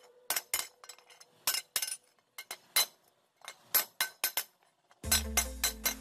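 Steel hammer striking a rusty iron bar laid on a round iron block: a run of short, sharp metallic clinks at uneven spacing. Background music with a bass line comes in about five seconds in.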